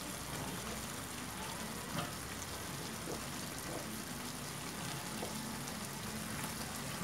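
Chicken curry with potatoes sizzling steadily in a steel pan on a gas burner. A few soft taps come as potato cubes are added, and the spatula stirs the pan near the end.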